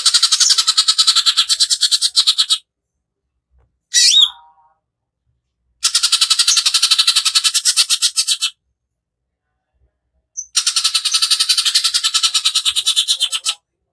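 Cucak ijo (green leafbird) singing its harsh, rasping 'tembakan kasar' bursts: three rattling runs of two to three seconds each, at about ten notes a second, with a short falling whistled note after the first run.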